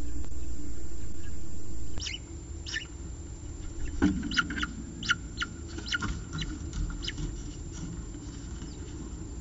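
A steady rumbling hiss for the first two seconds, then about a dozen short, high chirps over the next five seconds: peregrine falcon eyases calling as their mother feeds them at the nest scrape, with a single knock about four seconds in.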